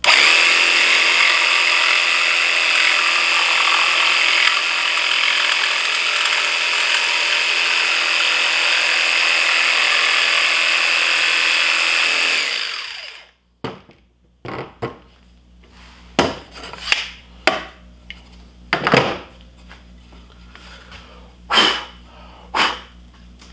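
Ryobi cordless jigsaw running steadily with a high whine as it cuts a corner off a wooden board, winding down and stopping after about twelve seconds. A series of sharp, separate knocks and clatters follows.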